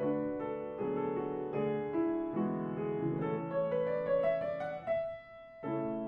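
Background piano music: single struck notes ringing on in an unhurried melody, with a short break about five seconds in before it picks up again.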